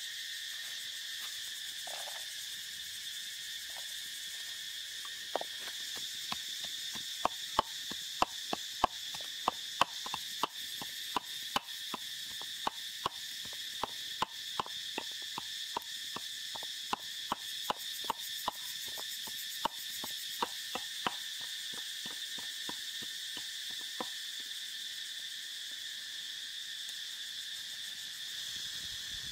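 A steady, high-pitched insect chorus. Sharp crackles and pops, two or three a second, come from a small wood fire grilling eggs on sticks; they start about five seconds in and die away after about twenty seconds.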